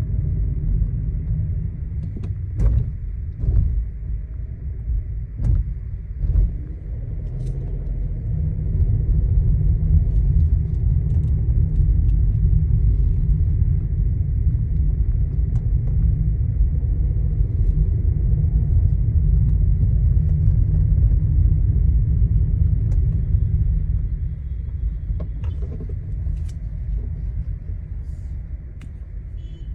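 Skoda Kushaq 1.0 TSI automatic driving, heard from inside: a steady low road rumble with scattered sharp clicks and rattles from the interior trim, the rattling the owner traces to the dashboard, center console and doors.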